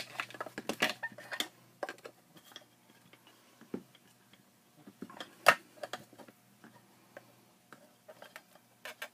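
Hard plastic parts of a solar floodlight's housing clicking and knocking as it is handled and worked apart by hand, in irregular clicks, with one sharper knock about five and a half seconds in.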